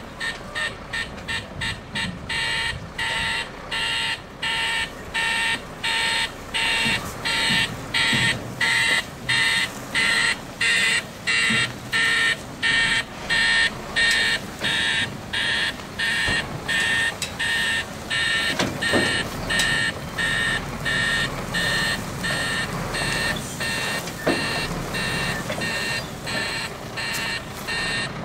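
Articulated lorry's reversing alarm beeping steadily, about three beeps every two seconds, over the low running of its diesel engine.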